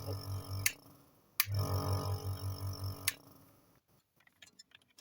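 A CN-233 compressor nebulizer's compressor runs with a steady hum and cuts off with a click under a second in. It restarts with another click about half a second later, runs for nearly two seconds, then winds down, followed by a few faint clicks. The stop-start running is the sign of a bad contact, which the repairer suspects is in the power button or the mains connector.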